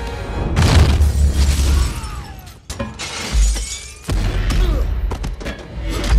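Movie action sound effects: crashing impacts and shattering debris with deep booms, over film score. There is a short lull midway, then more crashes and booms.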